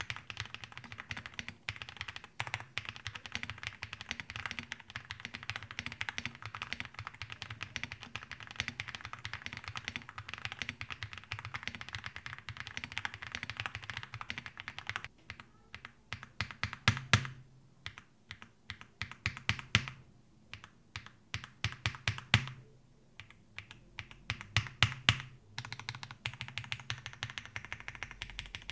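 Typing on an Akko MonsGeek M1 V5 aluminium-case mechanical keyboard with lubed Akko V3 Piano Pro linear switches and PBT keycaps: fast, continuous keystrokes for the first half, then slower, separate strokes with some louder ones. The strokes are muted 'tok tok' presses with no case ringing, thanks to the keyboard's multi-layer internal foam dampening.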